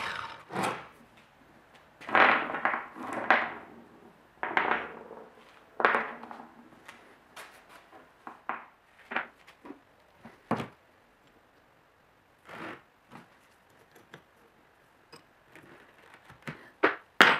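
Short cut pieces of steel rod knocked and set down on a plywood workbench: a series of irregular knocks and clunks, with a louder pair near the end as a piece goes into the bench vise.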